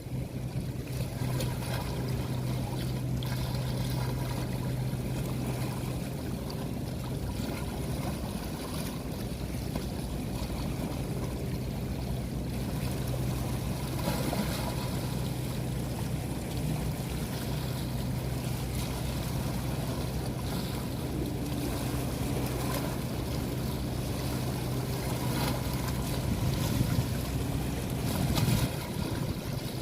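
Steady rush of water and wind noise with a constant low hum underneath.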